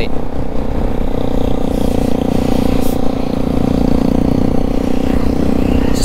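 Bajaj Pulsar NS200's single-cylinder engine running steadily at cruising speed, heard from the rider's own bike, with wind buffeting the microphone.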